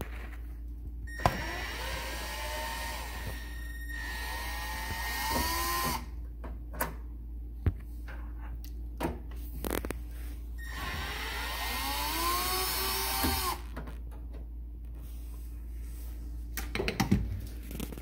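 A small Torx bit turning a screw out of the microwave's sheet-metal door-switch bracket, heard as two long stretches of whine whose pitch rises and falls, about a second in and again around eleven seconds in. Between and after them come several sharp clicks of the tool against metal.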